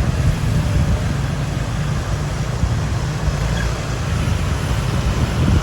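Steady road traffic noise with a low rumble of passing vehicles.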